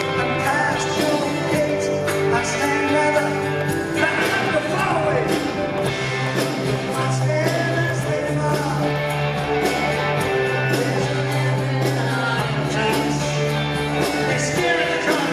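Live concert music: a band playing with a lead singer singing over it.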